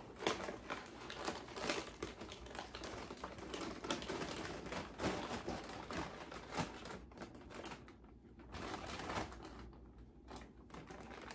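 Rummaging through plastic snack bags: crinkly packets rustling with many small rapid crackles and clicks, easing off for a moment about eight seconds in.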